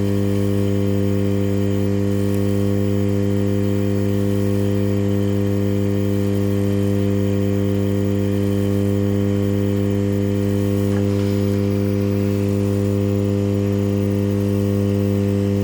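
Hot air rework station running with its air blowing, heard as a steady, unchanging buzz.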